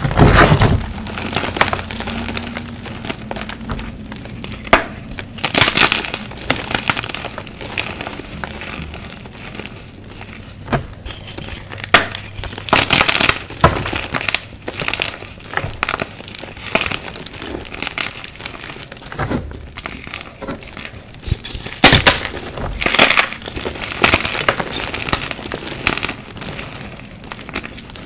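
Dyed gym chalk crumbled and crushed by hand: irregular dry crunches as chunks break between the fingers, with softer gritty crumbling of powder between them.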